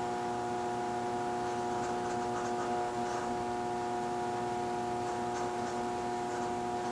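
Steady electrical mains hum from a kitchen appliance: one low buzzing tone with a stack of even overtones, holding level throughout.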